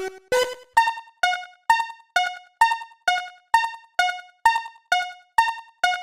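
Electronic level-crossing bell dinging steadily at about two strikes a second, each strike decaying quickly and alternating between two pitches. Just under a second in, the pair of tones shifts higher.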